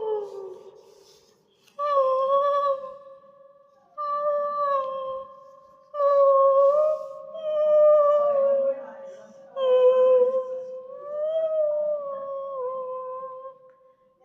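Howling calls used as sound effects for an invented polar Spinosaurus creature: a falling call trails off, then four long calls start about two, four, six and ten seconds in, each held at a fairly steady pitch with slight wavers.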